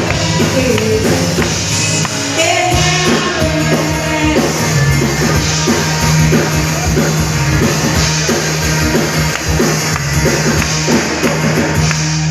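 Loud rock-style music with a singer, a drum kit and held bass notes under a steady beat.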